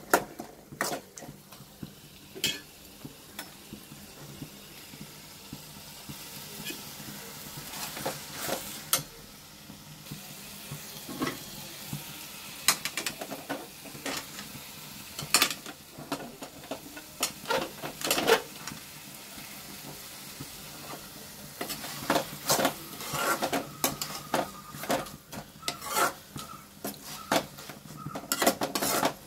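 Sliced onions and tomatoes sizzling in oil in a metal kadai while being stirred, with the spoon scraping and knocking against the pan many times.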